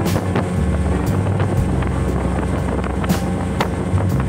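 Speedboat engine running steadily under way, a continuous low drone, with wind on the microphone and irregular sharp knocks.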